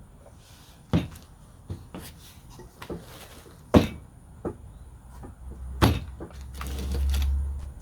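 Handling knocks and clanks of car suspension parts during a rear control-arm install: three sharp knocks about a second, four seconds and six seconds in, lighter taps between, and a low rumble near the end.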